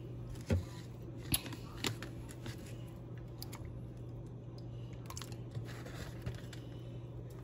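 Scattered crinkles and clicks from a plastic zip-top bag of fish-fry coating and plastic containers being handled while a fish fillet is breaded, over a steady low hum.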